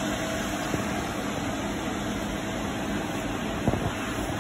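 Wacker Neuson RD12 ride-on roller's diesel engine idling steadily, with a few light clicks near the end.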